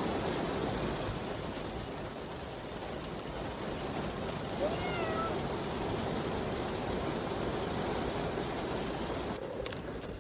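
A domestic cat gives one short meow about halfway through, over a steady rushing noise.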